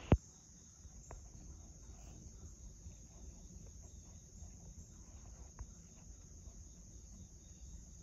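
Steady high-pitched insect chorus, with one sharp click right at the start and a couple of faint ticks later.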